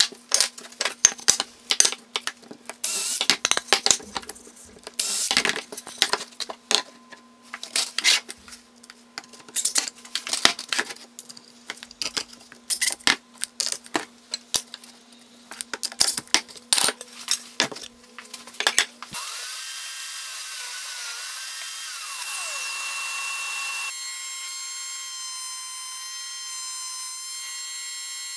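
Cordless drill driving washer-head particle board screws through a magnetic tool bar into a wooden shelf in short bursts, with clicks and clatter of screws being handled, over a faint steady hum. About two-thirds of the way through, the drilling stops and steady electronic tones take over, with one tone gliding down, then change to a different set of steady tones.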